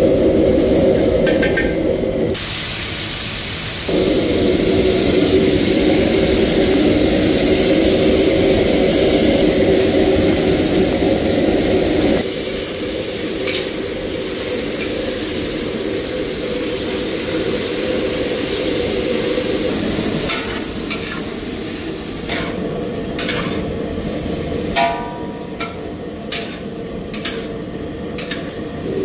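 Food sizzling and frying in hot oil in a steel wok over a gas burner, with a steady low rumble underneath. A metal ladle stirs, scrapes and clicks against the wok, most often in the last few seconds.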